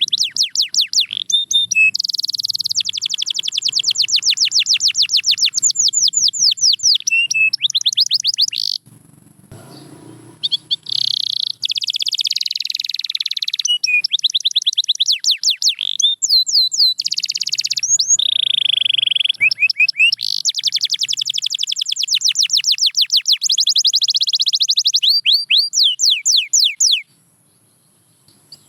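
Domestic canary singing: a long, high-pitched song of fast trills made of rapidly repeated sweeping notes, changing from one trill to the next. It breaks off briefly about nine seconds in and stops near the end.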